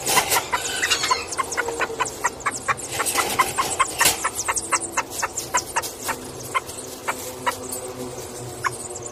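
Chickens clucking, a quick run of short calls about three to four a second that thins out toward the end.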